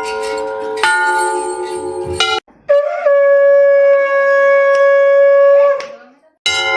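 Temple bell ringing, struck again about a second in, then cut off. After a short gap a conch shell (shankh) is blown in one steady long note of about three seconds that fades away, and the bell ringing starts again at the very end.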